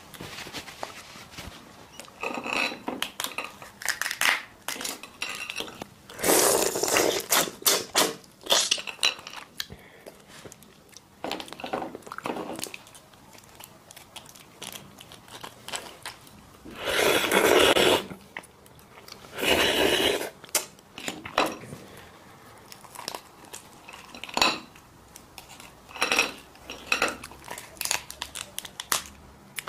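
Close-miked sounds of whole prawns being pulled apart, peeled and eaten: many small sharp cracks and snaps of shell, wet squelching and chewing, with a few louder noisy bursts of about a second each.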